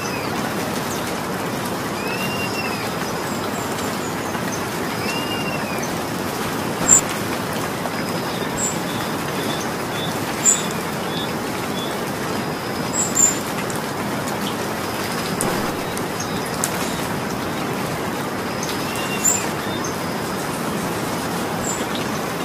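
Steady rain falling. A bird gives short arched chirps a few times, and a handful of brief, sharp high sounds stand out above the rain, the loudest about 7 and 10 seconds in.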